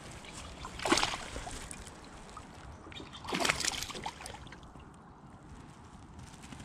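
Hooked largemouth bass thrashing and splashing at the water's surface, with two loud splashes, about a second in and about three and a half seconds in.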